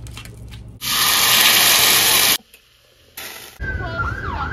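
A loud rushing noise for about a second and a half. Then, about three and a half seconds in, an emergency-vehicle siren starts, its pitch sweeping up and down.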